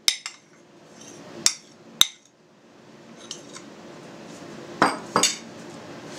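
A metal spoon clinking against a plate as grated cheese is scooped off it: several sharp separate clinks, the two loudest about five seconds in.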